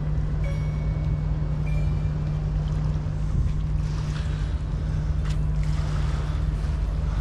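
Steady low engine drone of a boat on the water, an even hum with rumble beneath, with a few faint clicks and short high tones over it.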